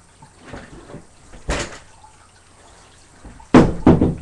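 Scuffling and bumping: one thump about a second and a half in, then two louder thumps in quick succession near the end.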